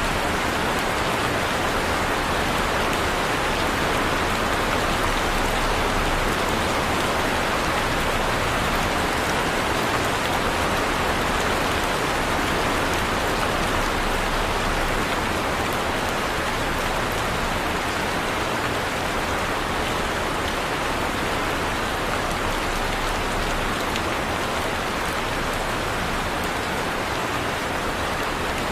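Heavy rain falling steadily, an even hiss of pouring rain with fine drop patter and no break or change.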